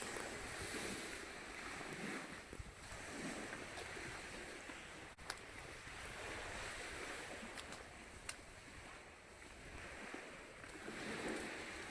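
Sea waves washing on the shore, a steady wash that swells and fades every few seconds, with a few faint clicks.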